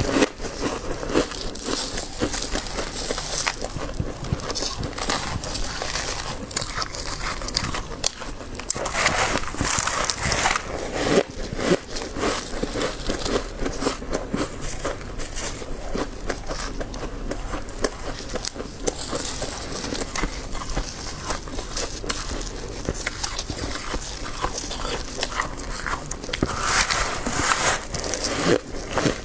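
Soft freezer frost being bitten and chewed: a dense, continuous run of crackly crunches.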